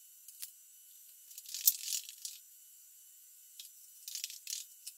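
Scattered light clicks and brief rustles of hands handling parts at a milling machine's rotary table and chuck, with a sharper click near the start and a few bunched clicks about a second and a half in and again near the end.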